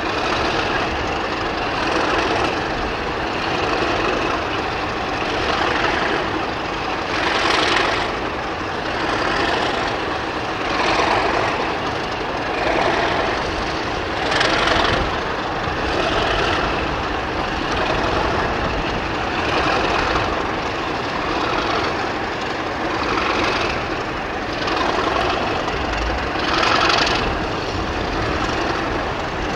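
British Rail diesel-electric locomotive engine running under power, a steady noise that swells and eases every couple of seconds.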